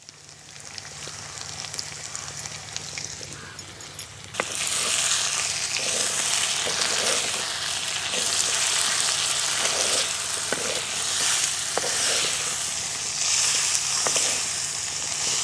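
Chopped vegetables (onion, carrot, beans, green peas) sizzling in hot oil in a clay kadai while being stirred, with scattered ticks of the spoon against the pot. The sizzling gets much louder about four seconds in.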